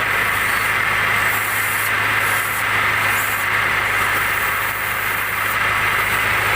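Kia Pride CD5's carbureted engine idling with a steady hiss from an air/vacuum leak at the carburettor, which the owner blames for an idle that won't settle.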